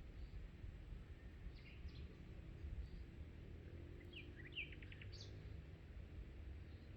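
Faint songbirds chirping: a few short high calls, with a quick cluster of chirps about four to five seconds in, over a steady low background rumble.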